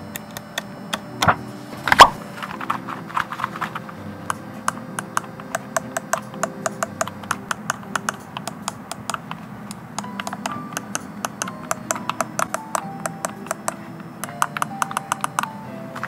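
Keys being pressed on a Royal Kludge RK Round mechanical keyboard with round typewriter-style keycaps: a long run of short, quick key clicks, about two to four a second. Two louder knocks come about one and two seconds in.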